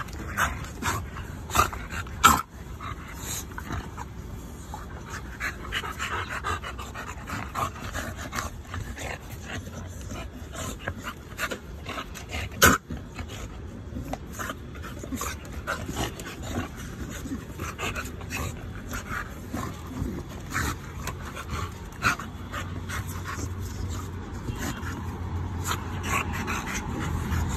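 Pit bull-type dogs fighting at close range: a busy run of short, sharp dog noises, with two louder ones about two seconds in and near the middle, and a low rumble building near the end.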